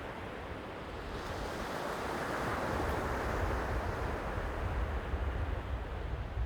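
Sea waves washing onto the shore, the surge swelling about a second in and peaking midway, over a low rumble.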